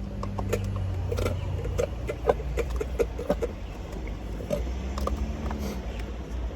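A car engine idling with a steady low hum, under a run of short clicks and scrapes of someone digging and slurping at the last of a McDonald's sundae in its cup.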